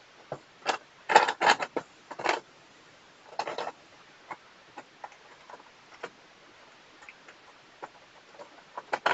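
Small plastic pieces clicking and rattling as they are handled and put back into a plastic container: a few light clicks, a cluster of clatter about a second in and another around three and a half seconds, then scattered faint ticks.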